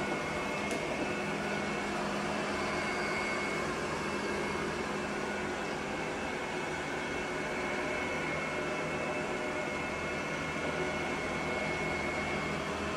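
Robot vacuum cleaner running: a steady whir from its motor and brushes, with a thin, steady high whine over it.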